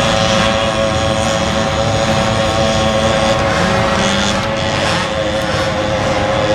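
50cc mini ATV engines running at steady high revs, a buzzing drone that holds its pitch with little change.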